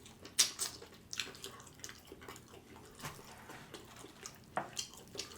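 Wet chewing and lip-smacking of barbecued rib meat close to the microphone: scattered soft, wet clicks, a few of them louder.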